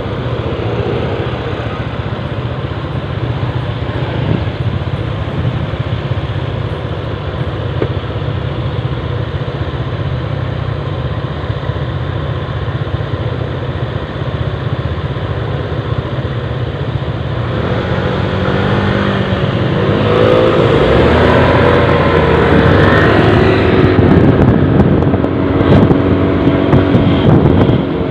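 Motor scooter engines idling steadily in traffic, then about two-thirds of the way through the scooter pulls away and its engine note rises in pitch and grows louder as it accelerates.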